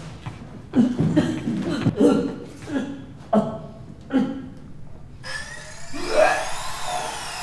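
A man's short vocal bursts without words, about one a second. From about five seconds in, a whine joins that rises and then falls in pitch.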